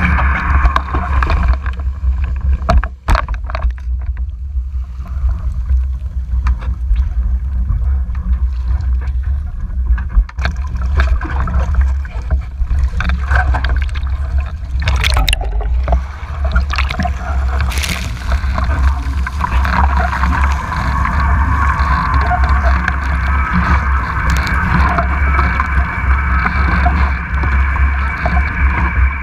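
Wind buffeting a boat-mounted action camera's microphone and water rushing and splashing past a foiling Moth Mach 2 dinghy's hull and foil strut. About ten seconds in there is a sudden loud splash as the boat heels hard and the camera dips into the water.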